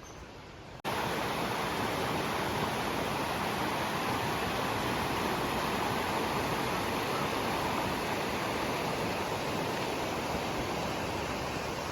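Steady rush of flowing river water, like a waterfall or rapids, cutting in abruptly about a second in and holding even throughout.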